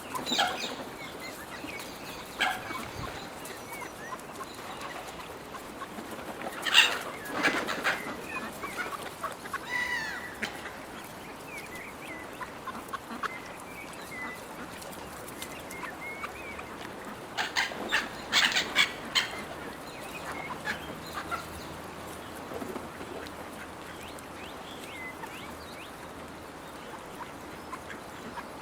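Gulls calling and squabbling over food: harsh squawking calls in clusters, loudest about seven seconds in and again around eighteen to nineteen seconds, with scattered shorter calls between.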